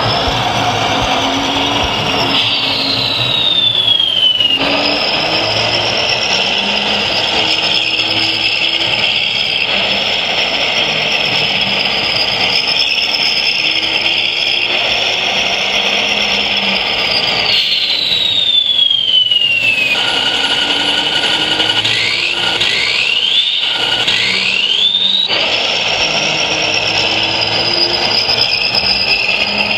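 High-pitched whine of scale RC model electric drive motors and a hydraulic pump running. The whine glides down in pitch twice, a few seconds in and again near the middle, and then rises in three quick sweeps before settling back to its steady pitch.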